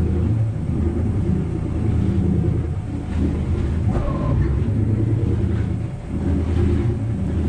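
Inboard engine of a wooden Lyman boat running at low speed in gear as the boat is backed slowly out of its slip: a steady low rumble whose pitch shifts a few times with the throttle.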